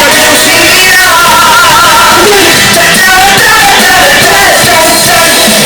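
Election campaign song playing loudly: a sung melody over instrumental backing.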